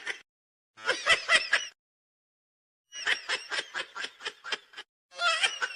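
A person laughing in three bursts of quick, repeated snickers.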